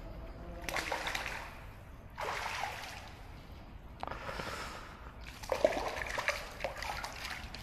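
A hooked trout splashing at the water surface in about four separate bursts as it is played toward the landing net.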